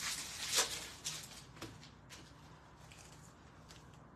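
Hockey card pack wrapper crinkling as it is torn open and the cards are pulled out, loudest in the first second. After that come faint rustles of cards being slid through by hand.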